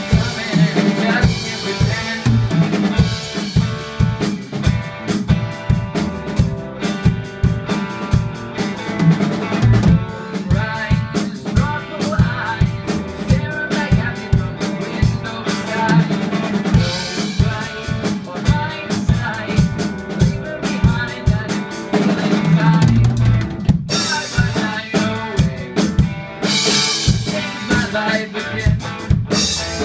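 Yamaha drum kit playing a driving rock beat of kick drum, snare and cymbals, with cymbal crashes now and then, over a backing band's bass and guitar. There is no singing.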